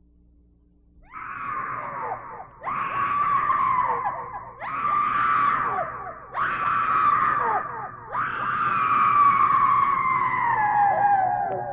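A high voice screaming five times in a row, each scream about a second and a half and trailing down in pitch at the end, the last one the longest: a haunted-house scream sound effect.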